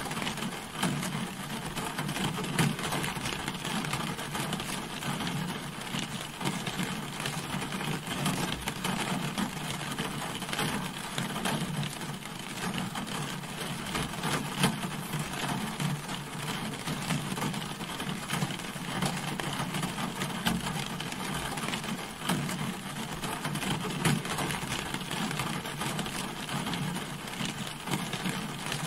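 Steady rain falling on a car, a dense patter of drops striking the body.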